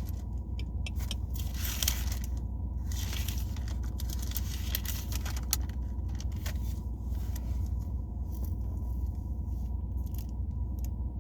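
Pages of a Bible being turned: a run of brief crisp rustles and flicks, thick at first and thinning out in the last few seconds, over a steady low hum.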